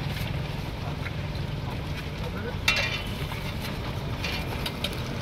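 Street-stall ambience: a steady low rumble of traffic, with one sharp metallic clink of steel serving utensils against a pot a little past halfway.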